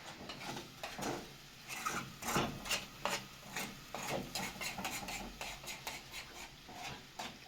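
Irregular scraping and clinking of objects being handled, a run of short clicks and rubs with no steady rhythm.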